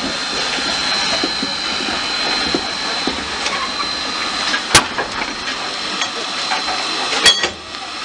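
Steam locomotive standing with steam hissing steadily, a thin steady high tone running through the hiss. Two sharp clicks break in, one just under five seconds in and one about seven seconds in.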